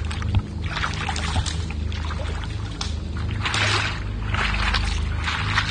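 A person wading through a shallow boggy stream, feet sloshing and splashing in the water in uneven bursts, over a steady low rumble.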